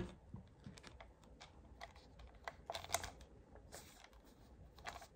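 Faint, scattered clicks and taps of a white plastic aroma diffuser being picked up and turned over in the hands. The taps are strongest about three seconds in.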